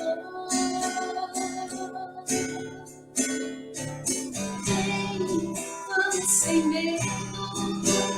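A song: an acoustic guitar strumming, with a singing voice over it.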